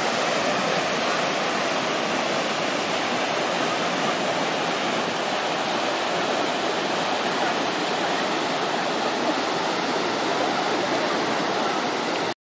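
Steady rushing of whitewater rapids on the Soča river, an even roar of fast water over rocks. The sound drops out for a moment near the end.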